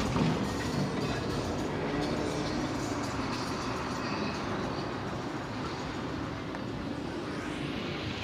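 Steady outdoor rumble and hiss, like distant traffic, easing off slightly over the few seconds.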